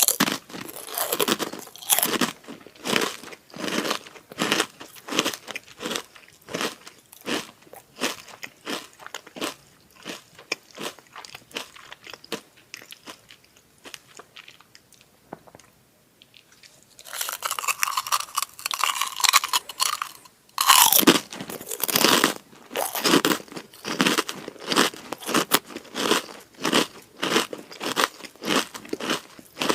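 Close-up crunching and chewing of crispy kerupuk crackers, about two to three crunches a second. The crunching pauses near the middle, then comes back after a few seconds of denser, continuous crackling.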